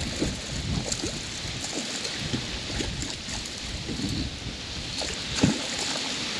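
Hooked pacu thrashing and splashing at the surface beside a kayak, with water sloshing and short knocks against the hull, and one louder splash about five seconds in.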